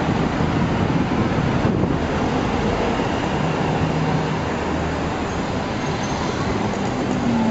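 Steady city traffic: cars and taxis driving past close by, with engines running and tyres on the road.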